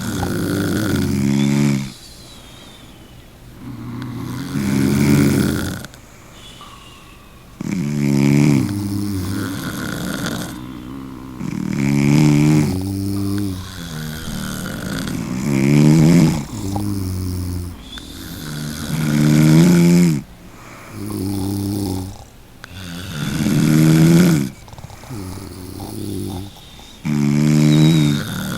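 Snoring: loud, pitched snores on the in-breath repeating about every three to four seconds, with quieter breathing in between.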